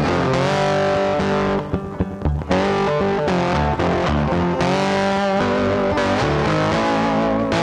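Background music led by an electric guitar with distortion, with a short break in the playing about two seconds in.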